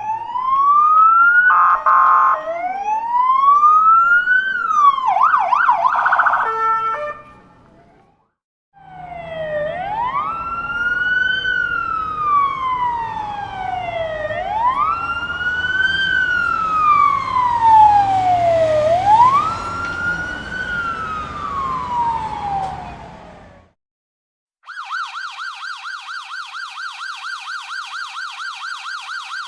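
Electronic police siren sound effects: a wail rising and falling, with a quick burst of rapid warbling; after a short gap, a slower wail sweeping up and down three times; after another short gap, a fast, even yelp warbling quickly up and down.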